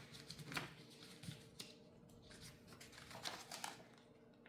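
Faint paper rustling and soft clicks as an instruction manual is opened and its pages handled, a few brief sounds spread over about four seconds, over a faint steady hum.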